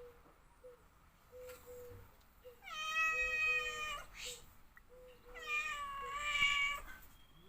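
Domestic cat meowing twice: two long, drawn-out meows a little over a second apart, the second wavering in pitch.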